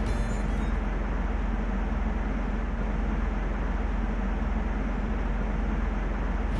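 An engine running steadily with a low, even rumble. Music fades out in the first second.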